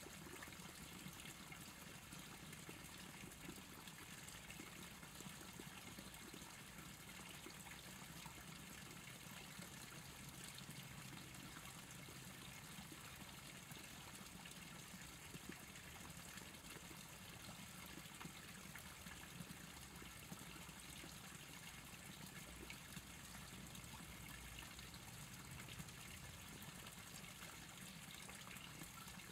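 Faint, steady outdoor ambience: an even hiss with a low hum beneath it and no distinct events.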